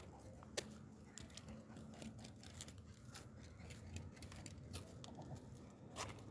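An animal feeding greedily off the ground, making quick, irregular faint clicks and pecks, with a sharper click about half a second in and another near the end.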